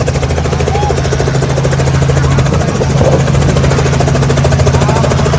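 Helicopter running close by: fast, steady rotor-blade chop over a constant engine drone.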